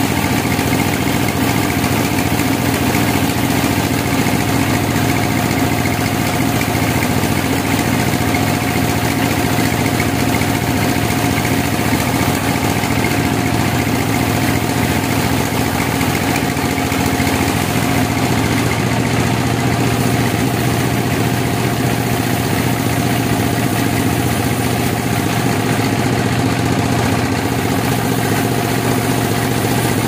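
Large log band saw mill running steadily: a constant mechanical drone with a steady hum, whose low part grows stronger about two-thirds of the way through.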